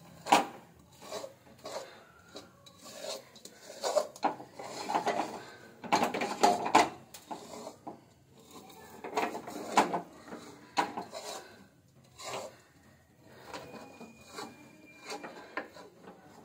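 A spatula scraping and knocking irregularly against a kadhai, working loose sesame-jaggery mixture that has stuck to the pan as it reheats on the gas, with a sharp knock just after the start.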